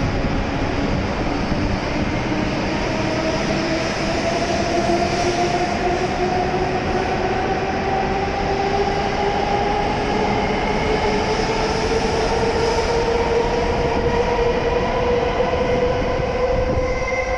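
W7 series Shinkansen accelerating out of the station past the platform. The electric traction motors' whine rises steadily in pitch over the rumble of the passing cars.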